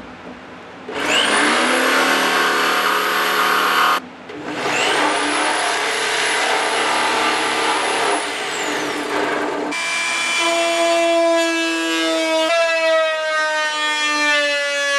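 Cordless jigsaw cutting through plywood paneling in two runs: its motor whines up about a second in, stops briefly, runs again and winds down with a falling whine. About ten seconds in, an oscillating multi-tool takes over with a steady, high-pitched buzz as it cuts.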